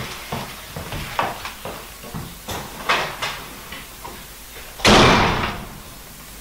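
Footsteps along a hallway, then a wooden apartment front door slammed shut about five seconds in, with a loud bang that dies away over a second.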